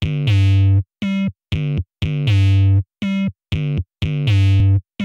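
Electronic synthesizer intro music: a repeating pattern of one longer chord followed by two short ones, about once a second, each cut off cleanly with brief silences between.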